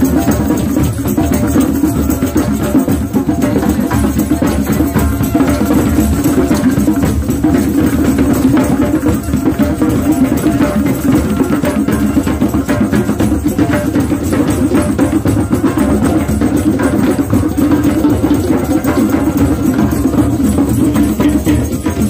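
Percussion-heavy music: fast, dense drumming runs at a steady loudness throughout.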